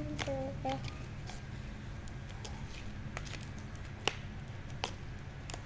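Clay slime with added water being squished and kneaded by hand, giving a few sharp sticky pops and clicks over a steady low hum. A child hums briefly at the start.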